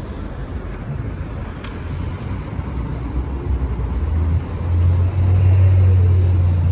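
City street traffic: cars passing with a low engine rumble that grows louder about four seconds in.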